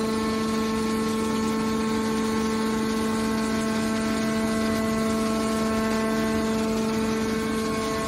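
Hydraulic scrap-metal baler running, its hydraulic power unit giving a steady, even hum of several pitches as the cylinder swings the top lid shut.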